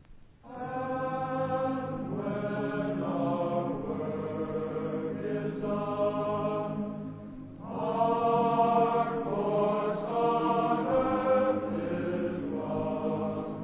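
Choir singing slow, sustained phrases in harmony. It comes in about half a second in after a brief pause and swells louder about eight seconds in.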